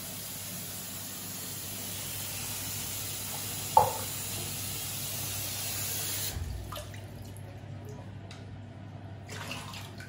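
Bathroom tap running into a sink, with a single brief sharp sound about four seconds in, the loudest moment. The flow stops suddenly about six seconds in, leaving small clinks and splashes of a metal cup in the water.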